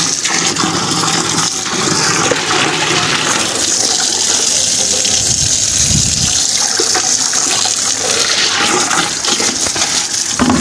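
Tap water pouring in a steady stream into the steel drum of a drum-type vacuum cleaner, with a hand swishing and scrubbing the water around inside to rinse the dust out.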